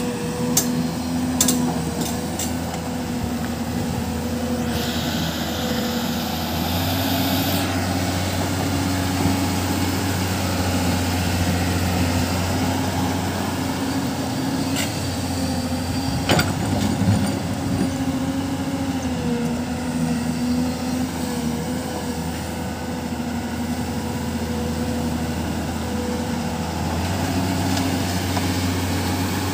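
Heavy-equipment diesel engine running steadily, with a burst of hiss about five seconds in and a few sharp knocks.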